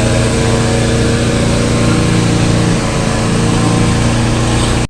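An engine running steadily at constant speed, a loud even hum with no change in pitch.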